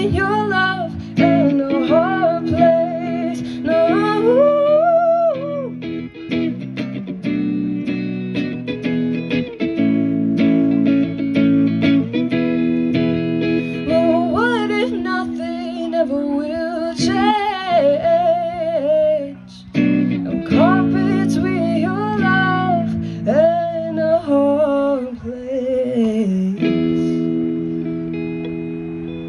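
A girl singing wordless vocal runs over held, ringing electric guitar chords in the outro of a song. Near the end the voice stops and the last chord rings out and fades.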